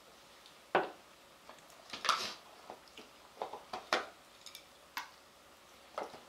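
Light clicks and clinks of tableware while eating: utensils tapping against bowls and plates about eight times at irregular intervals.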